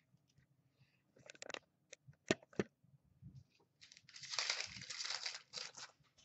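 Hockey trading cards handled by hand: a few sharp snaps of card stock, then about two seconds of crisp rustling as a stack of cards is flipped through.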